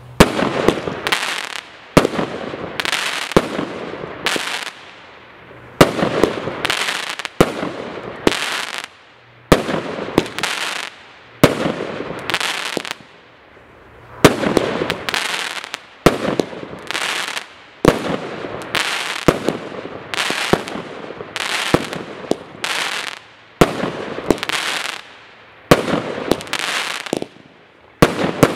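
Jumbo JW036 Gold Willow firework cake firing shot after shot, about one a second with a couple of short pauses: each shot a sharp bang followed by a hiss that fades within about a second.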